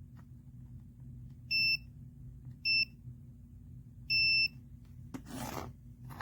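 Three high electronic beeps: two short ones about a second apart, then a longer one. A brief rustle follows near the end, over a steady low hum.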